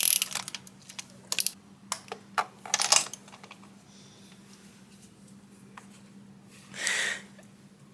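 A run of sharp metallic clicks and light clatter from hand tools working at a spark plug and ignition coil in the first three seconds. A short breathy huff follows about seven seconds in, over a faint steady hum.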